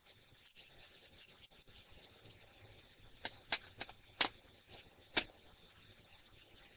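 Small steel parts clicking and clinking on a steel workbench: a threaded bolt with its nut set down and picked up, then fitted against a roller guide frame. Scattered light clicks, with a few sharp clinks between about three and five seconds in.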